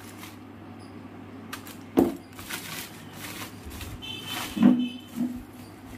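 White plastic delivery bag being handled and pulled open, rustling and crinkling. There is a sharp snap about two seconds in and another loud burst about four and a half seconds in.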